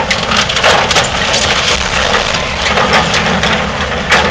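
Hitachi excavator dumping and crushing demolition debris into a steel dumpster: wood cracking and splintering with irregular clattering impacts, heaviest about half a second in and again near the end, over the machine's diesel engine running.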